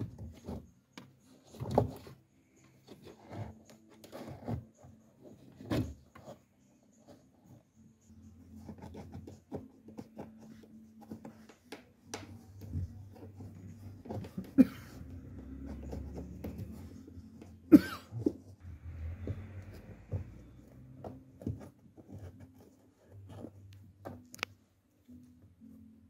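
Scattered clicks, knocks and rubbing of plastic interior trim and cable as a reversing-camera wire is tucked under the car's roof headliner and pillar trim with a small hand tool, over a faint low hum.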